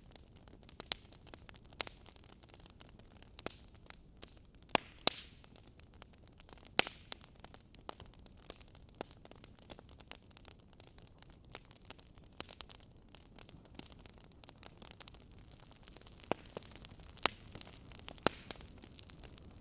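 Wood fire crackling in a fireplace: scattered sharp pops and snaps over a soft steady hiss.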